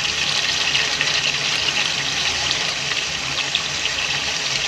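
Ground masala frying in hot oil in a kadhai: a steady sizzle with small crackles. The masala is fully roasted, with the oil separated and bubbling on top.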